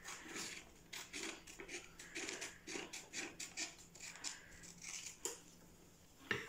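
Scissors cutting along the edge of a folded sheet of paper, a series of faint snips about two a second, with a sharper click near the end as the scissors are set down on the table.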